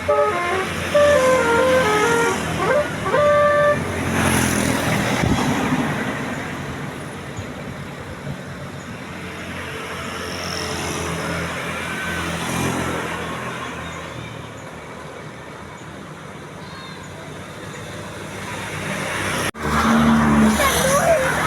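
A bus's Basuri telolet horn plays a short tune of stepped notes for about the first three seconds. After that the bus engine runs steadily under road noise, swelling a little and then fading.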